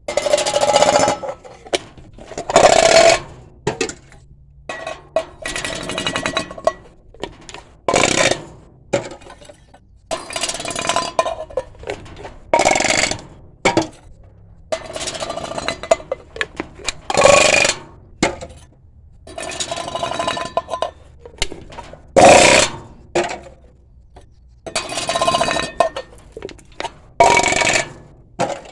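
Metal cans being crushed one after another, about a dozen crackling crunches with a metallic ring, a few seconds apart.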